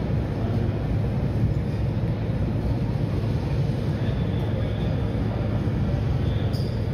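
Steady low rumble of an airliner cabin, an even noise with no sudden events.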